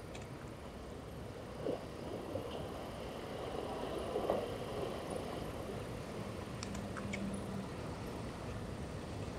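Steady low outdoor background rumble, with a couple of soft bumps early on and a few faint clicks about seven seconds in.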